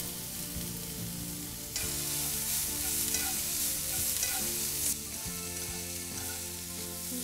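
Diced onion, jalapeño and green bell pepper sizzling in a skillet, stirred with a slotted spatula as fresh corn kernels are scraped in from a cutting board. The sizzle grows louder about two seconds in and eases back about five seconds in.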